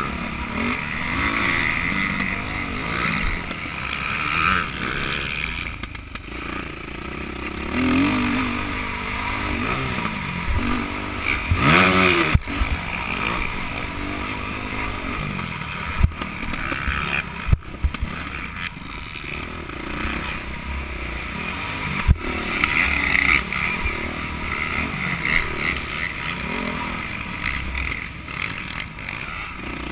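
Dirt bike engine revving up and falling off again and again while riding a motocross track, heard from a helmet-mounted camera. A few sharp knocks come in the middle stretch.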